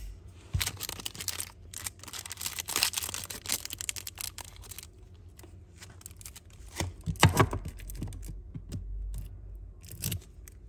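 Handling noise from Zippo lighters and their boxes: a string of small clicks, taps and rustles, with a louder cluster of knocks about seven seconds in.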